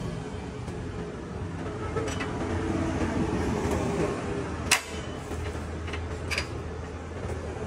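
Short pieces of steel tube clinking against a galvanized steel door frame as they are set in place: three sharp clicks, the loudest just under five seconds in, over a steady low hum.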